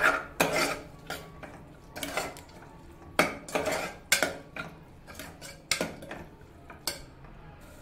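A metal ladle scraping and clinking against the inside of a pressure cooker as a thick onion, capsicum and curd masala is stirred and sautéed, in a dozen or so uneven strokes that stop about seven seconds in.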